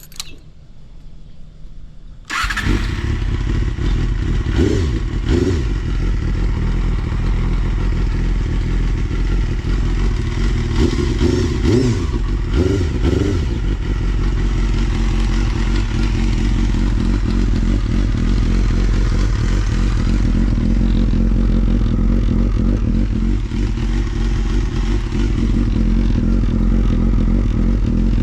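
Honda Jade's 250 cc inline-four with a WR'S four-into-one full exhaust, catching and starting from cold about two seconds in, then idling steadily. There are short revs a few seconds after it starts and twice more near the middle. It starts readily and runs without abnormal noises.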